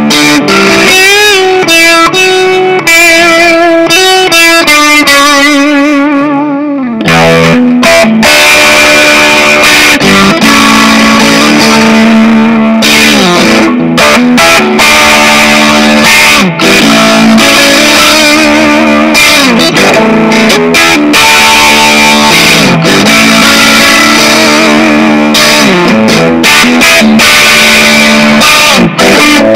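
Squier Mini electric guitar played loud with distortion. The first few seconds are bent notes with wide vibrato, then after a short break a repeating rock riff. It is recorded through a pair of headphones used as a microphone.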